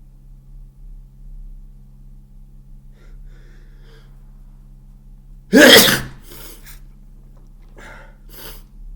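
A person with a cold gives one very loud, wet sneeze about five and a half seconds in, after a few faint breathy inhales. Several short breaths follow.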